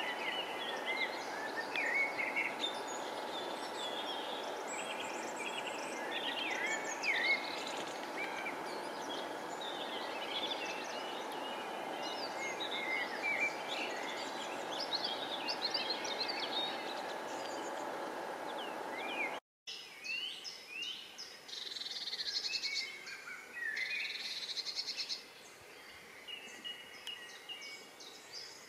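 Several wild birds singing and chirping, many short rising and falling calls, over a steady rushing noise. About two-thirds of the way through the sound cuts briefly, and the birdsong carries on without the rushing noise, quieter.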